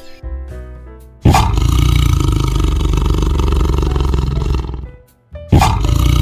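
A large animal roars, starting suddenly about a second in and lasting about three and a half seconds. A second roar begins near the end. Background music plays before the first roar.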